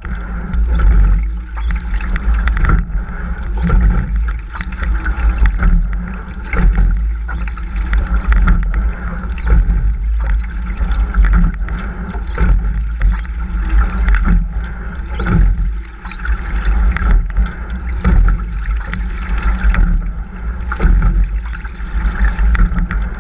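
A single racing scull under way: water rushing along the hull with a heavy low rumble, and the rowing stroke heard as a surge with knocks about every two and a half seconds.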